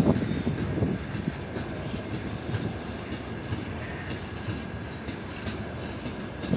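Freight train of open gondola wagons rolling past close by: a steady rumble of steel wheels on the rails with irregular clacks and rattles. It is louder in the first second.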